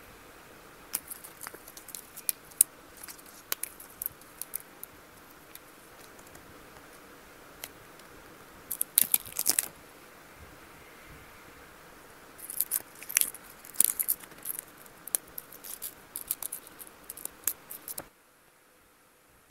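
Products and their packaging being handled and sorted: small clicks, taps and crinkles in scattered bursts, with a louder cluster about nine seconds in and a busier stretch from about twelve seconds. The sound cuts off about a second and a half before the end.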